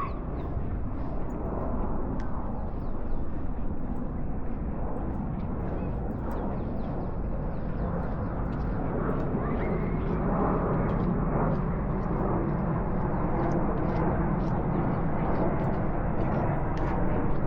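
Steady outdoor background noise, mostly a low rumble, growing a little louder about halfway, with faint scattered high ticks.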